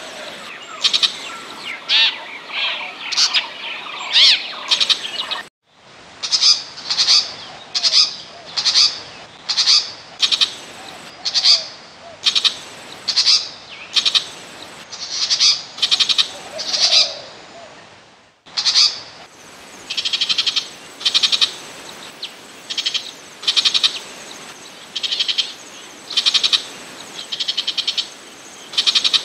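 Burmese shrike lure recording: short, scratchy calls repeated a little more than once a second. The track drops out abruptly twice where the recording is spliced.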